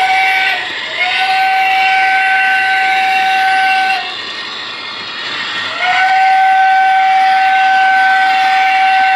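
The onboard Proto-Sound 2 sound system of an MTH O-scale DD1 electric locomotive sounding its warning signal: a short toot, then two long steady blasts of one pitch, over the running noise of the model train.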